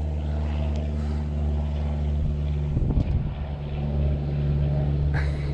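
Boat motor running at a steady idle, a low even hum, with a short hiss about five seconds in.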